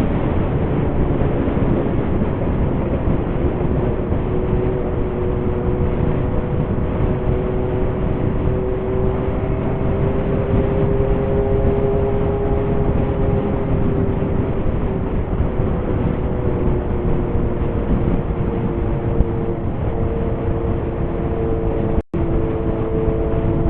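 Kawasaki Zephyr 750's inline-four running at a steady cruise while being ridden, its exhaust note coming through an MRS muffler fitted with a louder inner silencer, with wind rushing past. The engine pitch holds nearly even, with only slight drifts.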